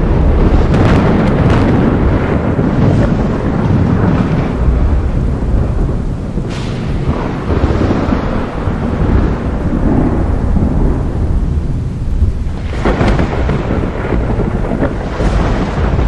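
Thunderstorm: thunder rumbling and rolling continuously, with sharper crackling peals near the start, about halfway through and again near the end.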